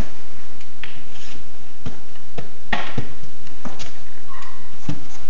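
A puppy's paws shifting on a cardboard box, making a series of short, scattered taps and scrapes.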